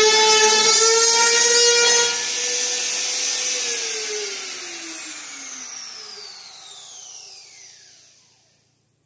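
Compact trim router lifted out of the cut with a knock, its motor whine jumping up as the load comes off, then switched off about two seconds in and spinning down, the whine falling steadily in pitch and fading out near the end.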